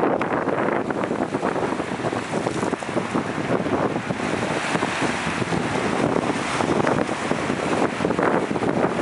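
Strong wind buffeting the microphone over waves breaking and washing against shoreline rocks.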